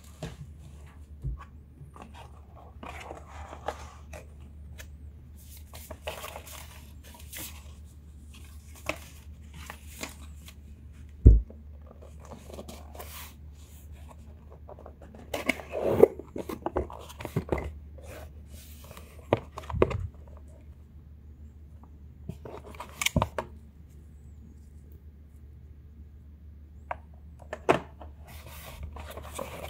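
Hands handling stiff cardboard laptop packaging: boxes and lids rubbing, sliding and being set down in scattered bursts, with one sharp knock about a third of the way through.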